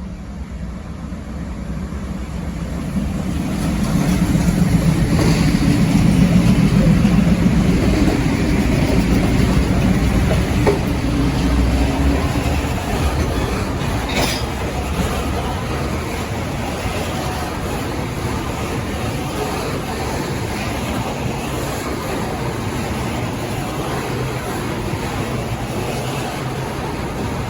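Freight train passing: the diesel locomotives' engine rumble builds over the first few seconds and is loudest for several seconds, then the wagons roll by with a steady rumble of wheels on rail.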